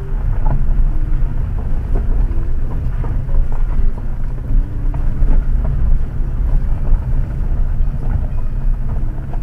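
Cabin sound of a 2018 Jeep Compass Trailhawk crawling up a loose gravel road: a steady low rumble of engine and tyres, with gravel crunching under the wheels and scattered small knocks and rattles from the stones and suspension.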